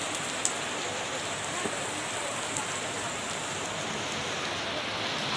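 Heavy rain falling steadily in a continuous hiss, with one sharp tick about half a second in.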